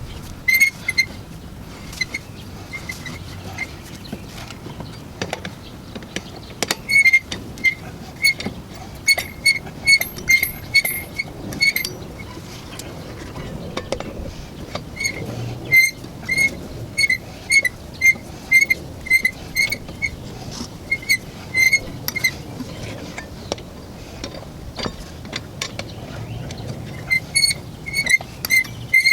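Ratchet wrench clicking in quick runs of short, high-pitched clicks with pauses between, as the wheel's lug nuts are run on by hand.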